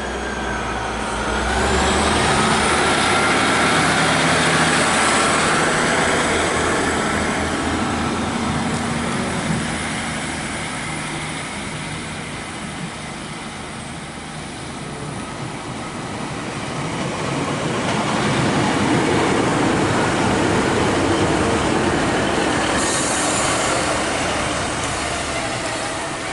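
Passenger train running at a station platform, with a rising whine near the start. It is loud for the first several seconds, eases off through the middle, and grows loud again after about eighteen seconds, with a brief hiss about twenty-three seconds in.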